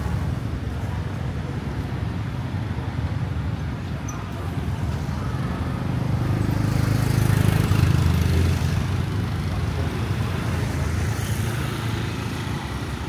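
Steady city street traffic with engines running. One vehicle passes close about halfway through and is the loudest moment, then the rumble settles back.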